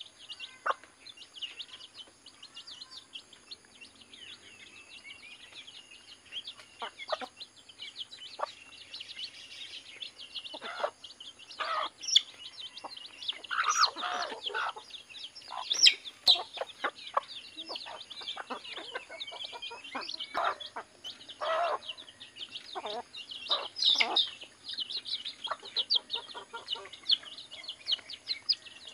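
A flock of free-range native chickens clucking as they peck up scattered corn. Short clucks come now and then, loudest from about the middle on, over a steady run of quick high chirps.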